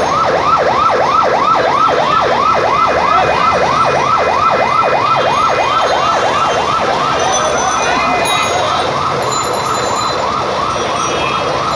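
Fire engine's siren on its fast yelp setting, with a continuous rapid up-and-down wail about three to four cycles a second. It is heard over steady street traffic noise.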